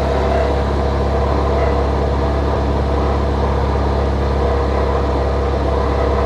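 Toyota Corolla 1.8 engine running cold at idle in Drive with an ugly, steady mechanical noise. The noise only shows on the first cold start, and the owner puts it down to the accessory belt tensioner, which is failing and leaking oil.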